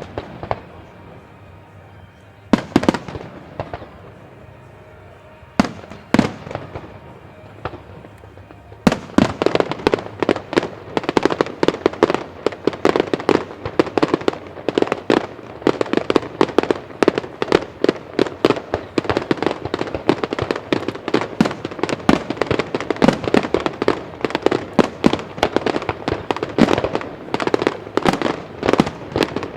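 Aerial fireworks display: a few single shell bursts, then from about nine seconds in a dense barrage of rapid bangs, several a second, that does not let up.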